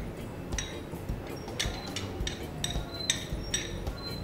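Metal spoon and fork clinking and scraping against a china bowl and plate as rice is served out: a string of short, ringing clinks.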